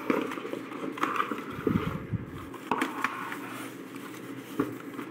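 Rustling and crinkling of thin white foam packing wrap being pulled off a keyboard, with a few sharp clicks and knocks as the keyboard and cardboard box are handled.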